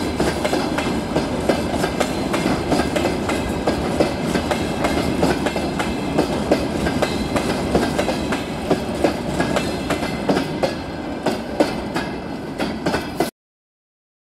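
Freight train of open gondola wagons rolling past, its wheels clattering over the track with a steady run of clicks and knocks. It eases slightly in the last few seconds and then cuts off abruptly near the end.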